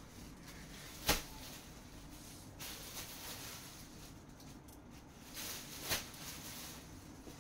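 Silk saree fabric rustling softly as it is handled and folded, with two sharp clicks, one about a second in and one near six seconds.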